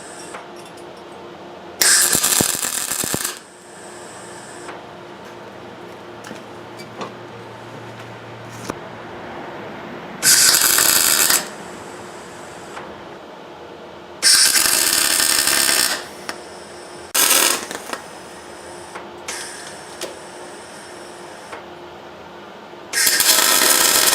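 Electric arc welder laying short tack welds on steel: five separate bursts of crackling, sizzling hiss, each lasting about half a second to under two seconds, with pauses of several seconds between them and a faint steady hum in the background.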